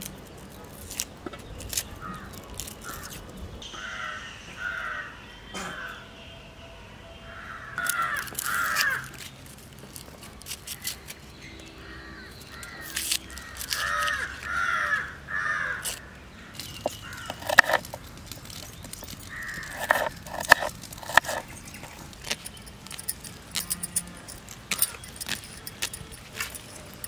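Crows cawing repeatedly in short runs of calls, with many sharp clicks and taps from handling in between.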